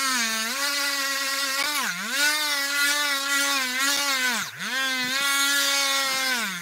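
A Dremel Stylo rotary craft tool whines as it drills into the eye socket of a masking-tape sculpture. Its pitch dips several times, most deeply about four and a half seconds in, as the bit is pressed into the tape and slows under load, then picks back up.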